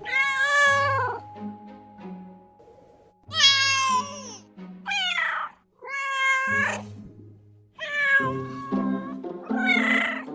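Kitten meowing over and over, about six separate high meows, each less than a second long, with background music underneath.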